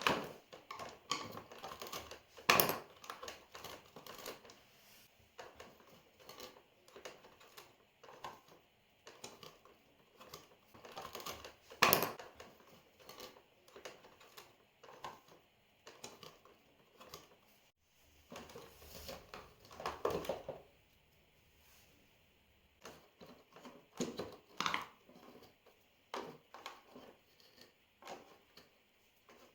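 Scissors and a flathead screwdriver cutting and picking tightly wound threads and hair off a vacuum cleaner's brush roll: irregular small clicks, snips and scrapes, with a few louder knocks.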